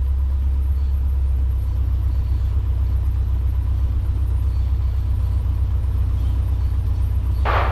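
Cessna 150's four-cylinder Continental O-200 engine running steadily, a deep low drone in the cockpit. Near the end there is a brief burst of noise.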